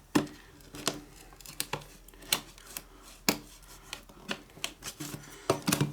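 Headphone box packaging being handled and opened: irregular sharp clicks and snips, a little busier near the end.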